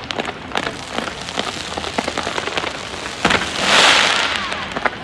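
Fireworks: a steady scatter of small pops and crackles, then a sharp bang a little over three seconds in, followed by about a second-long rush of crackling sparks that swells and fades.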